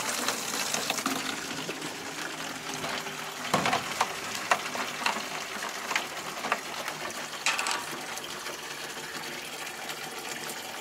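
Water running steadily into a ten-litre canister as it fills, with a series of short knocks and clunks as a second canister is handled.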